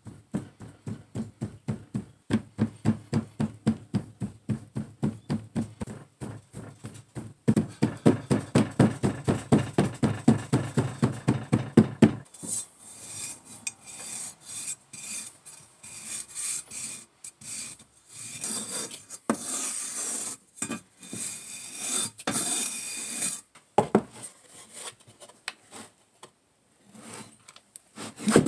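Metal rammer pounding oil-bonded molding sand into a wooden flask, about three to four thuds a second, louder from about seven seconds in. From about twelve seconds a steel angle bar scrapes across the top of the flask, striking off the excess sand with a gritty scraping for about ten seconds, then fainter scrapes.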